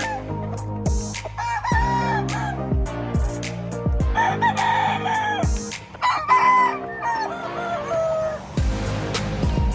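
Roosters crowing, about three crows of roughly a second each, over background music with a deep bass beat.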